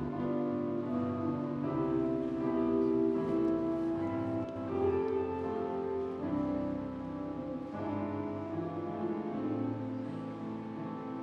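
Slow instrumental music led by piano, held chords changing every second or two.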